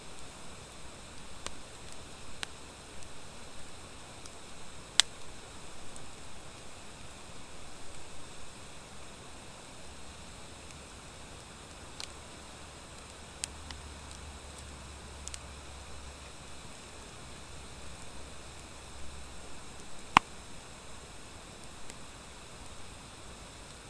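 Wood fire of driftwood mixed with dry hardwood logs burning: a steady soft hiss with sparse, sharp crackling pops from the hardwood. Two pops stand out as louder, about five seconds in and about twenty seconds in.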